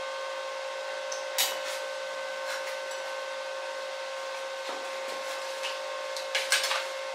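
Steady whine of a fan motor running in a small workshop. A few light clicks and clinks of handled metal sit on top, clustered near the end as a cutting disc is fitted onto an angle grinder.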